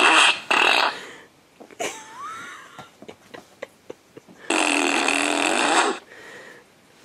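Whoopee-cushion fart sounds played from an iPad. They come as three buzzy blasts: one ending just after the start, a short one about half a second in, and a longer one of about a second and a half near the end. Between them are quieter clicks and scuffles and a short rising whine about two seconds in.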